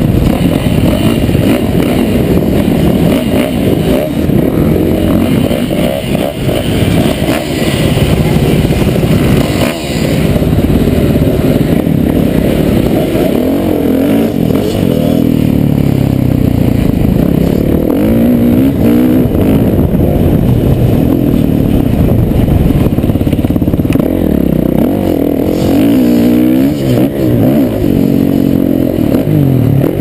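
Motocross dirt bike engine heard close up from on the bike, revving up and falling back over and over as it rides a dirt track.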